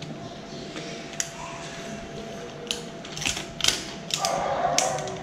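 Scattered clicks and knocks of a car headlight wiring kit being handled: its plastic couplers, relay and cables tapping together, with a short rustle about four seconds in.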